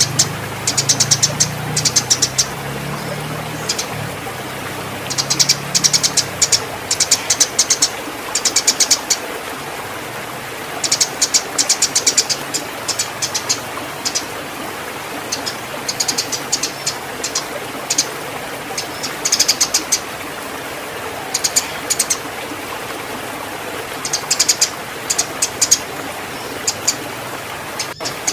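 Eurasian tree sparrow chattering in quick bursts of high chirps, a cluster every second or two: the excited calls of a fighting sparrow in breeding condition. A steady hiss runs underneath, with a low hum during the first few seconds.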